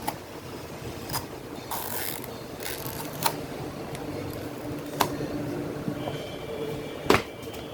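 Sharp clicks and knocks of tools at work on a truck tyre, irregular and a second or two apart, with a couple of short scraping sounds, over a steady mechanical hum that gets stronger in the second half.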